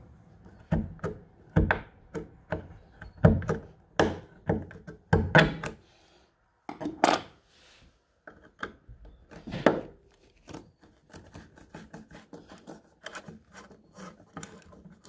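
Screwdriver tip scraping dried paint out of the screw heads on a painted window stay fitting: a run of sharp, irregular scrapes and clicks. In the last few seconds, quieter small ticks as the screwdriver turns the screws out.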